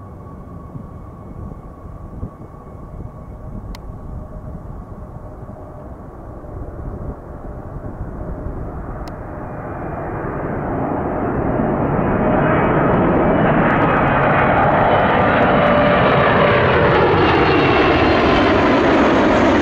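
Boeing 777 on final approach, its twin jet engines growing from a distant hum to loud as it comes overhead about halfway through. Near the end, whining engine tones slide down in pitch as it passes.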